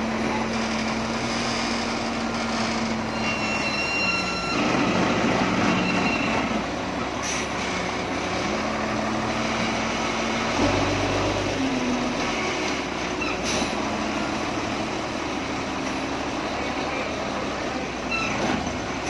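Doosan SD200N wheel loader's diesel engine running close by, getting louder for a couple of seconds about four and a half seconds in and again about ten seconds in.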